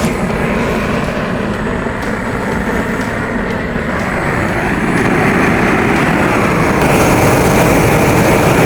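Large propane burner torch lit and burning with a steady rushing noise, scorching the surface of a wood carving. It comes on suddenly and grows a little louder and brighter from about seven seconds in.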